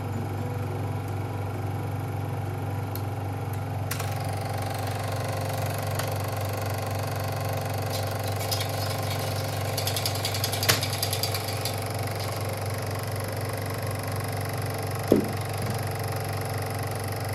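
Elmo ST-1200HD film projector running with a steady motor hum as film feeds through its mechanism, a cluster of clicks partway through and one sharp click near the end.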